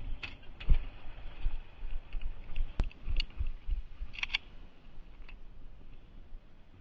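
Handling noise on a body-worn camera: scattered clicks, knocks and rustling with low bumps. There is one sharp click near the middle and a short cluster of knocks a little later.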